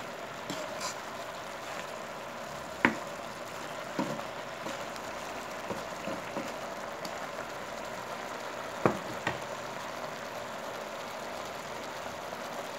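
Squash, squash blossoms and leaves sizzling steadily in a nonstick wok, with a few knocks of the stirring utensil against the pan; the two sharpest come about three seconds in and just before nine seconds in.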